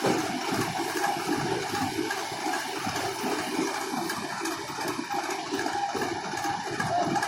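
Hira 785 combine harvester working: a steady, rushing, churning noise.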